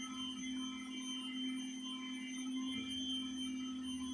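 A steady electrical hum made of several fixed tones, low and high together, unchanging throughout, with no distinct handling sounds standing out.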